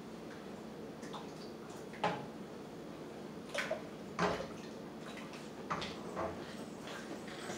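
A wooden spoon stirring milky atole in a steel pot, with a handful of sharp knocks of the spoon against the pot, over a steady low hum.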